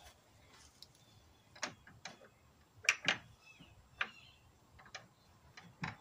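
Handmade wooden door latch on a wooden door being worked by hand: a series of irregular sharp wooden clicks and knocks as the handle and latch bar move, the loudest about three seconds in.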